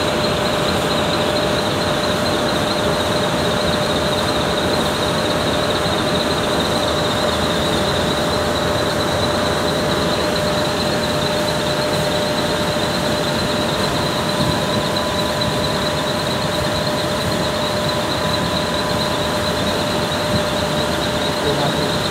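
20 HP floor-standing air conditioner running with its compressor on: a steady rush of blower air with steady high whines on top.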